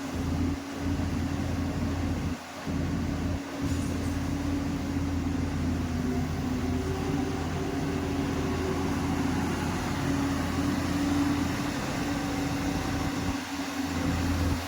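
Diesel engine of a heavy earthmoving machine running steadily with a low drone, broken by a few brief dropouts near the start and once near the end.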